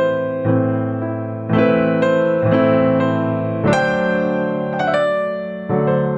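Slow piano music: chords struck about once a second, each left to ring and fade.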